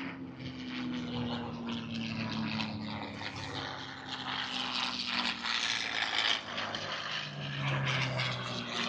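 Propeller-driven aerobatic airplane's piston engine running in flight, its pitch slowly falling, with a lower, louder tone near the end.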